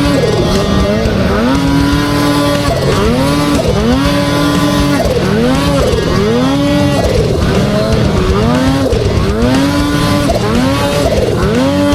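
Snowmobile engine revving up and down over and over, about once a second, its pitch climbing, sometimes holding briefly, then dropping back.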